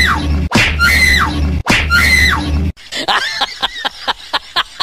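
A short high shriek that rises, holds and then falls, repeated three times as identical copies over a low hum. It cuts off sharply, and from about three seconds in a quick run of snickering laughter follows.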